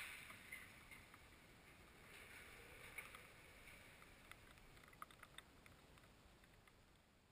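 Near silence: faint outdoor hiss with scattered small ticks and clicks.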